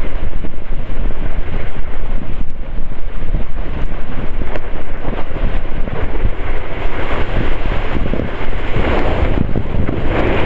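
Wind buffeting a board-mounted microphone at speed, mixed with a snowboard scraping and hissing over snow as it carves.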